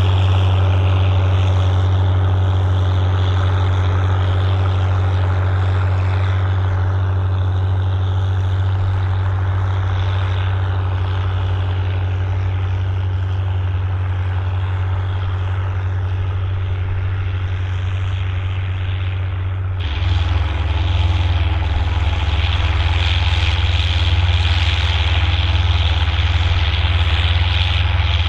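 Volvo BM 810 Turbo tractor's turbo diesel engine running steadily under load while pulling a six-furrow plough. Near the end the sound changes abruptly to a deeper note with more hiss.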